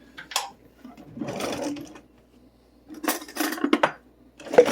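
A spoon scooping minced garlic onto the vegetables. There is a scrape about a second in, then a quick run of scrapes and clicks, and a sharp tap near the end.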